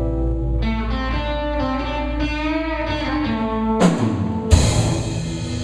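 Rock band playing live: electric guitar chords ring out and are held. Two sharp drum and cymbal hits about four seconds in start a new held chord, typical of a song's closing flourish.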